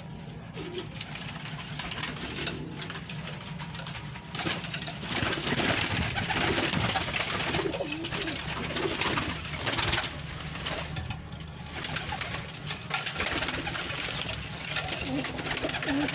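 Domestic pigeons cooing in a small loft: repeated low, throaty coos. From about four seconds in, a louder steady rushing noise runs underneath.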